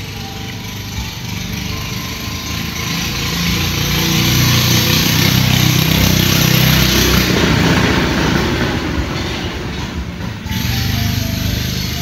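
A simple tinkling jingle melody, one note at a time. A few seconds in it is swamped by the rising and fading noise and rumble of a motor vehicle passing close by, which dies away near the end as the jingle returns.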